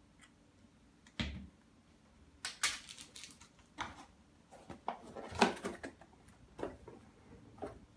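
Tabletop handling noises: a knock about a second in, then a series of crinkles, rustles and light knocks as a cardboard product box and its plastic packaging are picked up, moved and set down, loudest about five and a half seconds in.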